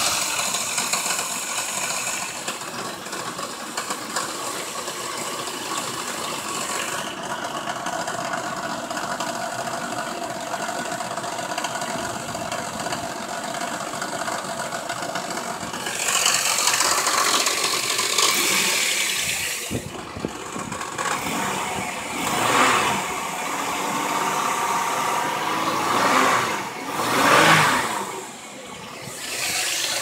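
1999 Montana minivan's 3.4-litre V6 running steadily, up and running again after a new fuel pump cured its no-start, with good fuel pressure. In the second half there are several louder swells.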